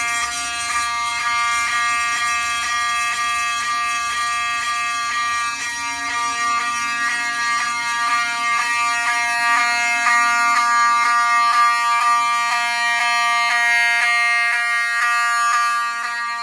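Fire alarm horn sounding a harsh pitched tone in rapid, even pulses, about two a second, with a fainter steady lower tone beneath.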